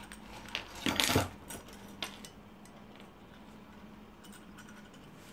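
Metal clinks and a short clatter about a second in, then a few lighter clicks, as a screwdriver and small carburettor parts are handled on a workbench.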